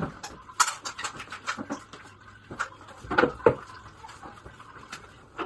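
Irregular knocks, taps and scrapes from cleaning a toilet: a cloth wiping the seat and a plastic basin being handled. The loudest is a pair of knocks about three seconds in.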